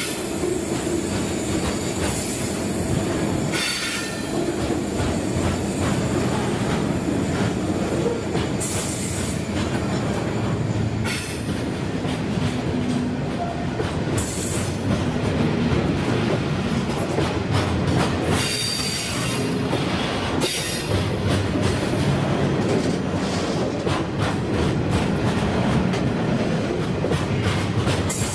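Loaded grain hopper wagons of a freight train rolling close past on a curve: a steady rumble of steel wheels on rail with a run of clicks over the rail joints. Brief high-pitched flange squeals rise out of it about 4 seconds in and again near the middle.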